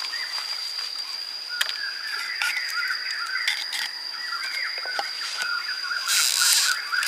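Outdoor ambience with a steady high-pitched insect drone, warbling chirps, scattered sharp clicks and knocks, and a brief hiss about six seconds in.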